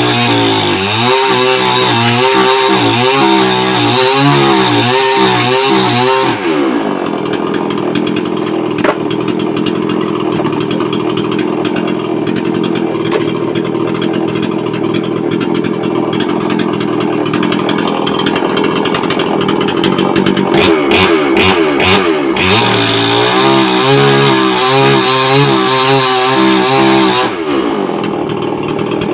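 Brait two-stroke chainsaw engine running at high revs, then dropping to a lower steady speed about six seconds in, revving up again for several seconds near the end and dropping back once more.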